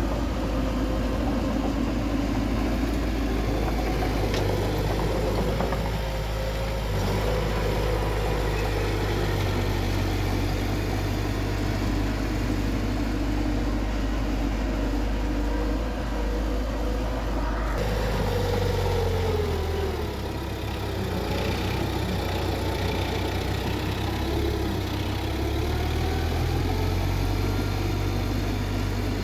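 Engine of a heavy earthmoving machine, a bulldozer or dump truck, running steadily, its pitch dipping about two-thirds of the way through and then climbing back.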